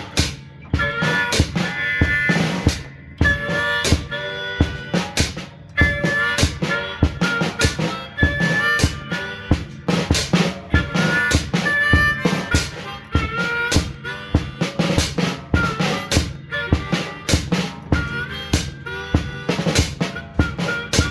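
Hohner Piedmont Blues diatonic harmonica played through a green bullet microphone, wailing a blues line of held and bent notes over a steady drum-kit beat.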